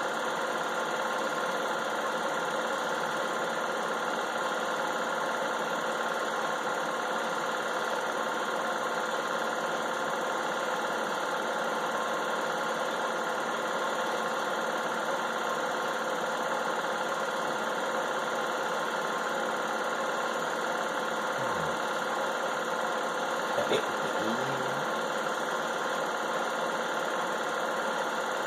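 Film projector running steadily, its motor and film mechanism giving an even hum with a fixed whine. A brief faint sound rises over it about 24 seconds in.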